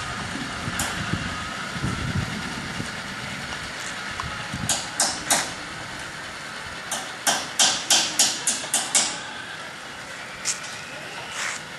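Engine sound effect from an RC M1A2 Abrams tank's on-board mp3 sound module, running steadily through its small speaker. Sharp clicks cut in over it: three about five seconds in, then a quick run of about eight a couple of seconds later.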